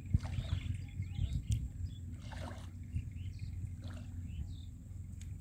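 Steady low outdoor rumble with faint water sloshing from wading through a river, and a few short, high bird chirps over it.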